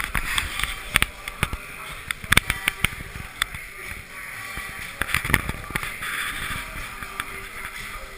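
Line dancers' feet stepping and stomping on a tiled floor, a run of sharp, irregular knocks, over music playing in the room.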